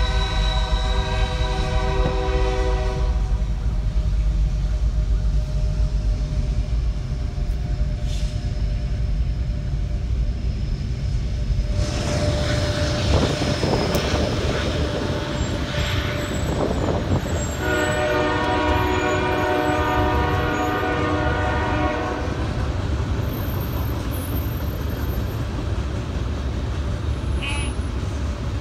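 Freight train led by BNSF and Norfolk Southern diesel locomotives passing, the engines and rolling cars making a steady low rumble. The locomotive's air horn is already sounding at the start and stops about three seconds in, then blows again about 17 seconds in for roughly four seconds.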